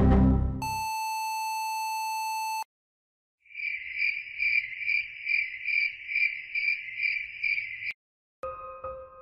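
Background music ends, then a steady electronic beep tone sounds for about two seconds and cuts off. After a brief silence, a cricket-chirping sound effect pulses about two to three times a second for some four seconds. Soft piano music begins near the end.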